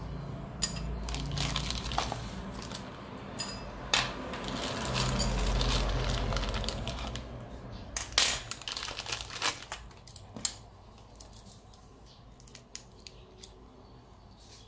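Plastic bag crinkling as a small part is unwrapped, followed by sharp clicks and knocks as the black metal scope-mount rings are handled. Only light, scattered ticks remain in the last few seconds.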